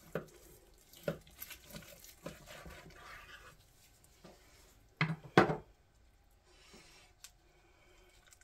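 Long knife cutting through a smoked prime rib roast on a wooden cutting board: light knocks and a soft scraping as the blade goes through the seasoned crust, then two louder knocks about five seconds in as the roast is handled.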